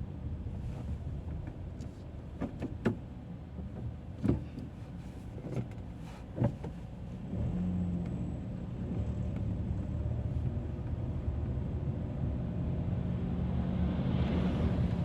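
A car driving, with steady engine and road noise. A few sharp knocks come in the first half, and the engine grows louder and steadier about halfway through.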